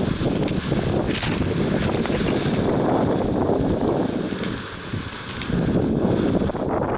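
Small firework hissing steadily as it sprays sparks, dying away about six seconds in, over wind buffeting the microphone.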